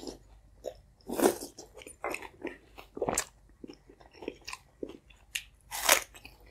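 Close-miked eating: wet chewing of soft egg and potato soup, broken by several short, sharp crunches. The loudest crunch comes near the end, as a chunk of raw onion is bitten.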